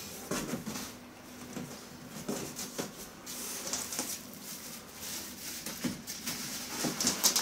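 Plastic wrapping and cardboard packaging rustling and crinkling as it is handled inside a cardboard box, with scattered light scrapes and knocks. The crinkling gets busier near the end.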